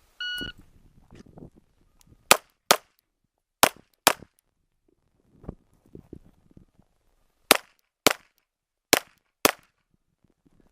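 A shot timer's start beep, then pistol fire: eight shots in four quick pairs (double taps), starting about two seconds in, with a pause of roughly three seconds between the second and third pairs.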